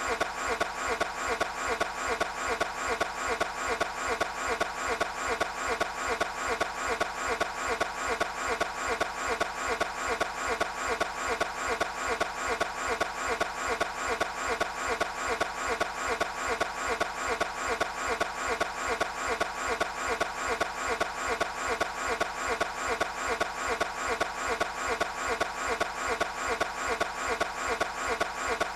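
A Toyota 86's engine being turned over on its starter without catching: an even, repeating churn of about three beats a second that goes on without a break. It is the sound of a car that will not start.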